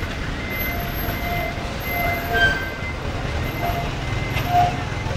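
Busy city street noise: a steady rumble of passing traffic, growing heavier about three and a half seconds in, with short high beeps now and then.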